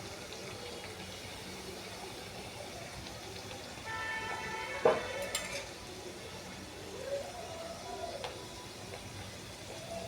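Steady sizzle of food frying in hot oil, with a short horn-like tone about four seconds in and a single sharp knock just after it.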